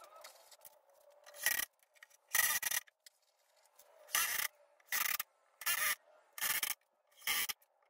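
Cordless drill boring a series of short holes into an oak plywood top: about seven brief bursts of bit cutting through wood, each under half a second, with short pauses between.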